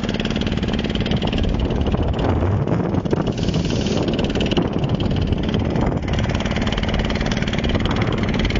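A boat's engine running steadily, with a constant hum under the noise of the boat moving through the water.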